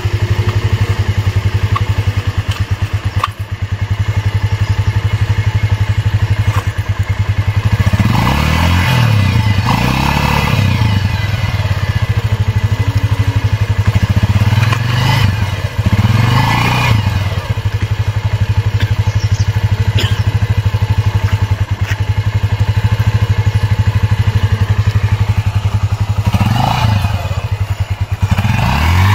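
Bajaj Pulsar 150's single-cylinder four-stroke engine idling, revved up three times: about eight seconds in, again around fifteen seconds in, and near the end. Each rev rises and falls back to a steady idle.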